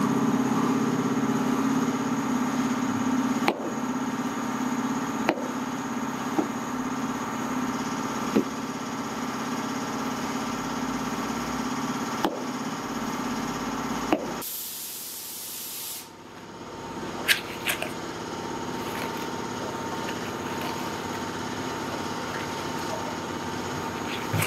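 Hand trowel scraping and knocking on wet foam concrete and the edges of a steel block mould, sharp knocks every second or two, over steady machinery running. The machine noise drops away about two-thirds through and a quieter steady hum continues.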